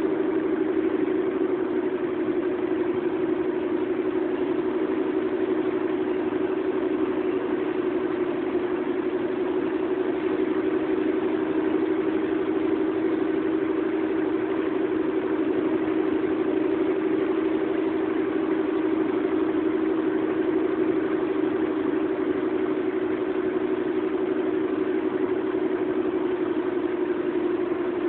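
Steady drone of a moving vehicle heard from inside its cabin: engine and road noise with an even hum.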